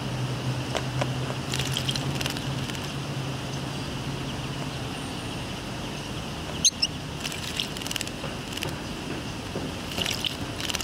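Yellow-rumped warbler bathing in a shallow pool, beating its wings in the water: bursts of small spattering splashes, the last burst near the end. A single sharp tick about two-thirds through is the loudest moment.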